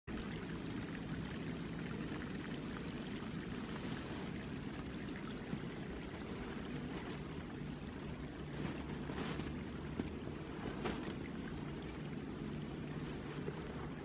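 A small unfrozen woodland stream running under snowbanks: a steady rush and trickle of flowing water.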